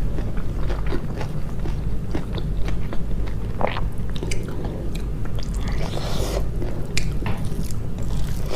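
Close-miked chewing and biting of food, with irregular small crunches and wet clicks over a low steady hum.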